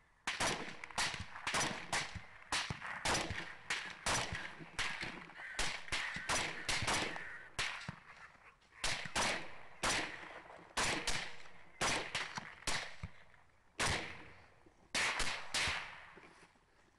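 Rapid semi-automatic rifle fire from an LWRC REPR with a Gemtech Quicksand suppressor, about two sharp shots a second, each with a ringing tail. It breaks off briefly about halfway, then resumes and stops about a second before the end.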